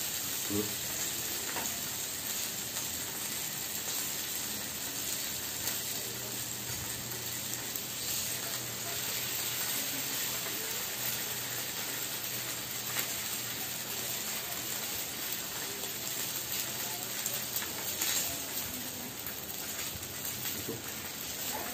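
Strips of pork belly sizzling steadily on a tabletop grill plate, with a few light clicks as the meat is moved.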